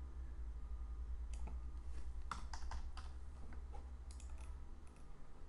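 Computer keyboard keys clicking in short scattered groups as a date is typed in, over a steady low hum.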